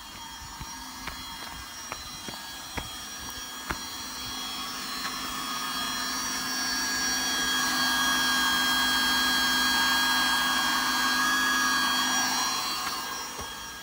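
A 1 hp solar-powered surface water pump running with a steady electric whine of several pitches, growing louder about halfway in and dropping off near the end. It is pumping water for irrigation from solar panels.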